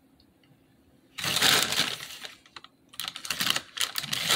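Plastic bag of Froot Loops cereal being handled: loud crinkling of the bag with the cereal rattling inside, starting a little over a second in, with a short pause in the middle.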